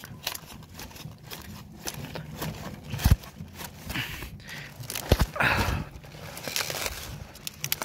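A knife cutting and scraping at the tough main stem of a red cabbage, with cabbage leaves and straw mulch rustling, many small clicks, and two dull knocks about three and five seconds in.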